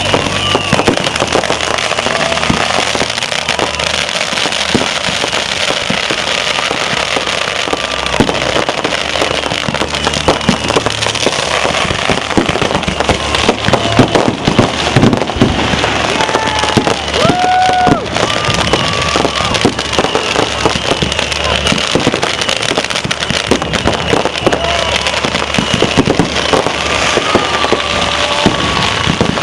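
Many fireworks going off at once, a dense, continuous crackling and popping, with short whistling tones that bend up and down now and then.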